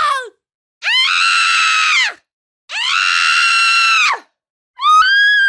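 A woman screaming in terror: two high-pitched held screams of about a second and a half each, each rising at the start and dropping off at the end, with short silences between. The tail of an earlier scream falls away at the start, and a new one begins near the end.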